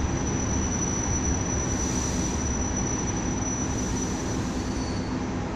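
Suburban electric train (elektrichka) heard from inside the carriage, a steady running noise with a thin, steady high whine as it moves slowly along a station platform.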